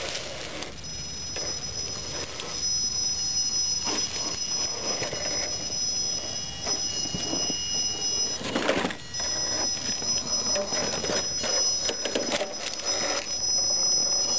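Electric 1/6-scale RC monster truck crawling over a stone block: its motor and speed controller whine at a steady high pitch, cutting out briefly near the middle, over the scrape and knock of its big tyres and chassis on the stone. The loudest knock comes about eight and a half seconds in.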